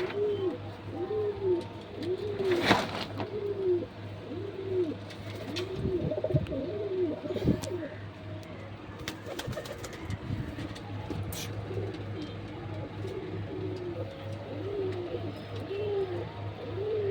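Domestic pigeons cooing: a steady run of short coos that rise and fall in pitch, about one or two a second. A few sharp clicks or taps and a steady low hum sit underneath.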